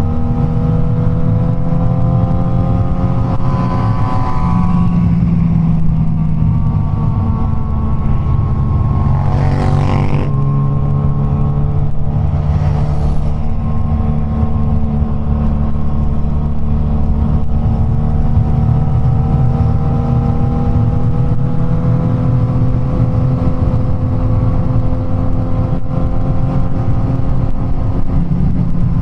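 Suzuki GSX-S1000's inline-four engine with an aftermarket Firetong exhaust running at a steady cruise under the rider. The engine note dips a few seconds in and climbs slowly through the second half. There is a short whoosh about ten seconds in and a fainter one a few seconds later.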